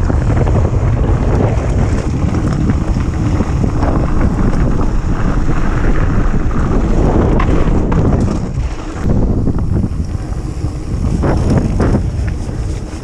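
Heavy wind buffeting the microphone of a camera on a mountain bike rolling fast downhill, with tyres crunching over loose gravel and scattered clicks and rattles from the bike. The wind noise dips briefly about two-thirds of the way in.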